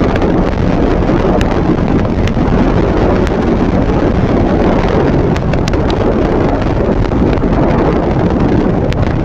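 Steady wind rush over the microphone of a motorcycle riding at speed, with the bike's engine and road noise underneath.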